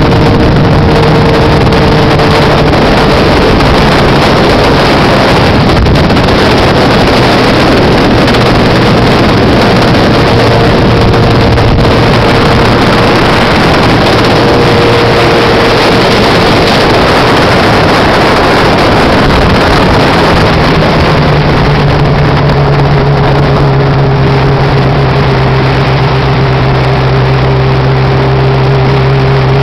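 Honda CBX 750's air-cooled inline-four motorcycle engine running loud, a steady drone with a heavy rushing noise over it. Its note steadies and strengthens about two-thirds of the way through.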